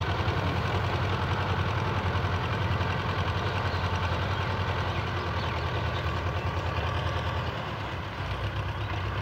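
Belarus 510 tractor's diesel engine running steadily with a low, even throb while hauling a heavily loaded trolley; it eases off briefly near the end.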